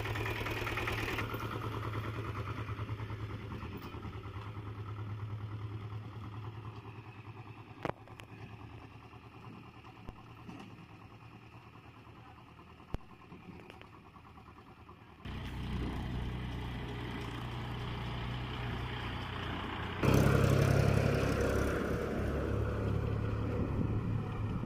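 Engine of a motorcycle-based three-wheeled cart running as it drives away, fading over the first fifteen seconds or so. Then a louder tractor engine comes in, and about twenty seconds in the tractor, hauling a water tanker, passes close, the loudest sound.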